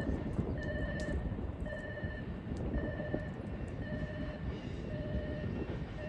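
Electronic railway warning alarm ringing a steady ding about once a second, signalling an approaching train, over a low rumbling background.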